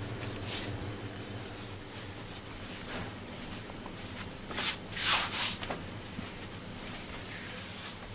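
Hands kneading and rubbing a still-crumbly flour-and-water dough against a granite countertop: short scratchy rubbing and scraping strokes, the loudest cluster a little past halfway through, over a low steady hum.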